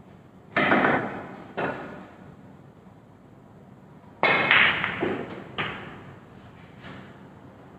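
Snooker balls clicking: two sharp knocks early on, then a cue striking the cue ball about four seconds in, followed by a run of ball-on-ball clicks and cushion knocks, each ringing briefly.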